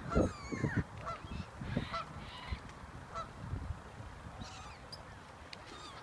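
A flock of waterbirds on a lake, gulls and mute swans, calling: many short calls, several overlapping, with irregular low thumps mixed in.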